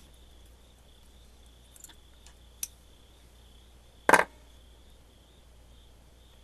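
A few small clicks and, about four seconds in, one sharp knock from handling the opened multimeter and its old soldered-on battery, over a faint steady high trill.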